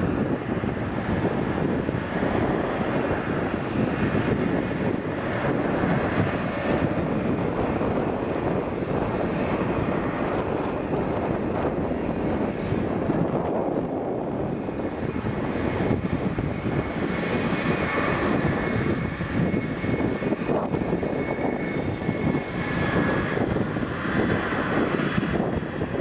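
Jet airliner engines running steadily: a Boeing 787 landing, and a Boeing 777-300ER's GE90 engines at low power as it taxis onto the runway and lines up for take-off. A thin steady whine comes through over the engine noise in the last several seconds.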